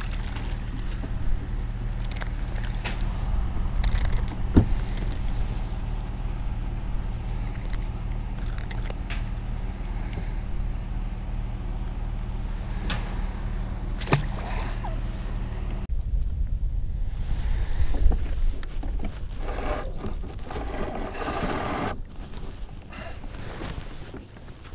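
Small boat's electric trolling motor humming steadily, cutting off about two-thirds of the way through. A few sharp clicks and rustling from the rod and reel being handled.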